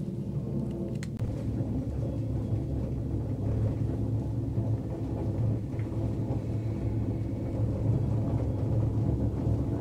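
Steady low rumble and hum of a gondola lift cabin running along its cable, heard from inside the cabin, with a single click about a second in. It grows slightly louder towards the end as the cabin nears a support tower.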